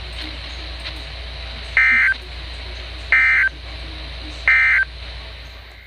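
Three short NOAA Weather Radio SAME digital data bursts, about a second and a half apart, over steady radio hiss and low hum. They are the end-of-message code that closes a National Weather Service warning broadcast.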